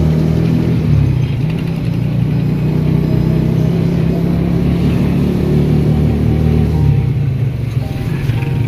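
A small vehicle engine running steadily while under way, with road noise; its low drone changes pitch about seven seconds in.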